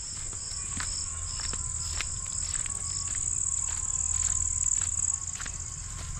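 Evening insect chorus: a steady high trill that eases a little about five seconds in, with a second insect chirping evenly about two and a half times a second for the first three seconds. Soft, irregular footsteps on the path sound underneath.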